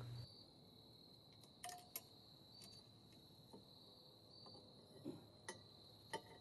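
Near silence: a faint steady high-pitched whine with a few faint clicks scattered through.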